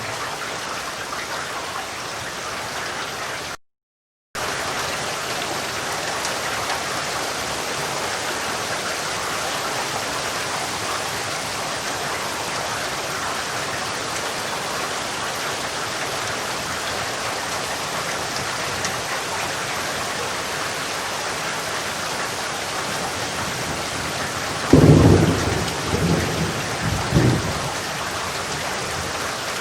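Steady rain falling, with a rumble of thunder near the end that swells in several peaks over about three seconds. The rain cuts out completely for under a second near the start.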